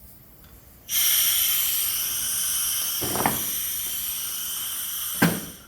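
Compressed air hissing from a pneumatic machine-gun pedestal mount, starting suddenly about a second in and running for about four seconds. A sharp click comes near the end as the hiss dies away.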